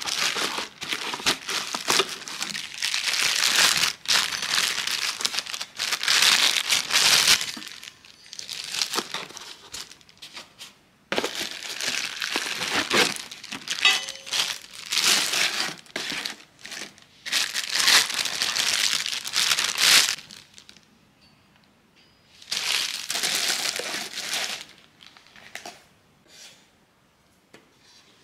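Crinkling and rustling of crumpled wrapping being handled, in long bursts of several seconds with short pauses, a last shorter burst after a lull, then only small faint handling sounds.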